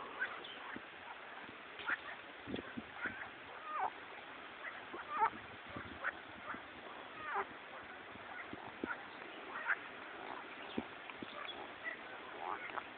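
Frogs in a river calling back and forth: short croaks, irregularly spaced about one a second.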